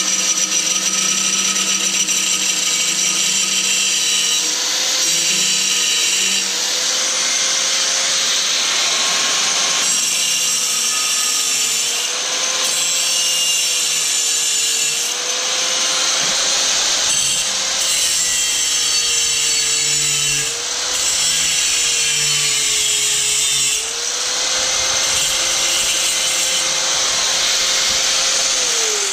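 A high-speed handheld power tool cutting away plastic hot enough to burn it. Its motor whine sags a little each time the bit bites and picks up again, under a loud cutting hiss, then winds down at the very end.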